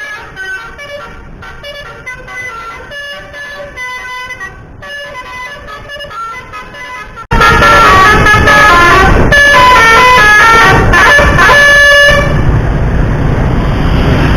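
Bus telolet basuri melody horn playing quick tunes of short stepping notes. About seven seconds in the horn becomes suddenly much louder and closer. Around twelve seconds it stops and a loud steady noise takes over.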